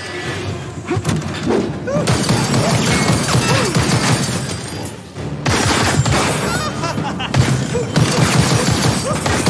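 Rapid gunfire from a handgun, bullets striking and ricocheting off steel railings, with a brief lull about halfway through.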